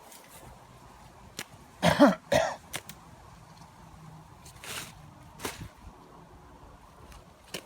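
A person coughing twice in quick succession, about two seconds in, with a few faint clicks and rustles around it.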